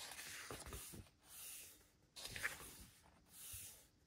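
Faint rustle and swish of glossy photobook pages being handled and turned, in about four soft strokes roughly a second apart.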